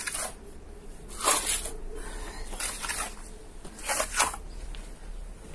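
A plastering tool scraping across fresh wall plaster in four strokes, about one every second and a quarter, smoothing out a seam and a lump in the coat.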